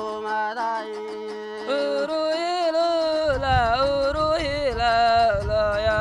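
A man singing long, wavering notes in a folk melody, with a lyre accompanying. A steady low note sounds under the first two seconds, and a low beat comes in about halfway.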